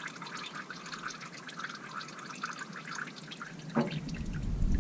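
Warm engine oil draining from the oil pan in a thin stream, a steady patter of small drips and trickling. Near the end a low rumble of wind buffeting the microphone swells up.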